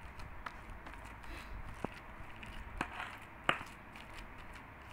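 Very ripe pisang uli bananas being mashed in a bowl with a hand pestle: soft squishing and scraping, with a few sharp clicks, the loudest about three and a half seconds in.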